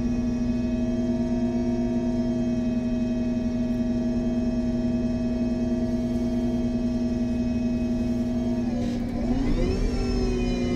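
MAN Lion's City G CNG articulated bus standing with its engine running, giving a steady whine over a low hum. About nine seconds in, the tones dip and then climb as the engine speeds up.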